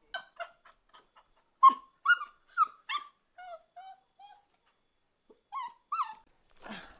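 Mastiff puppy whining and yelping in a run of about fourteen short, high cries, with a pause around five seconds in. A short rough noise comes near the end.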